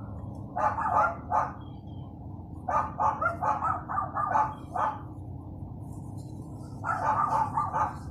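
Dogs barking in three runs of quick, repeated barks: one about half a second in, a longer one from about three to five seconds, and another near the end.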